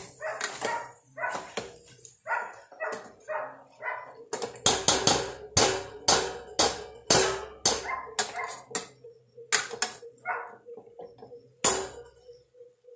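A dog barking over and over in a long run of short, sharp barks, thickest in the middle, with one last bark near the end.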